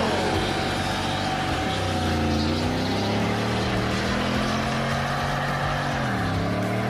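An engine running steadily, its pitch dipping briefly about two seconds in and again near the end as it slows and picks up speed.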